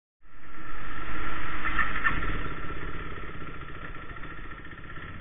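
KTM 390 Duke's single-cylinder engine running, coming in suddenly loud and then fading away gradually.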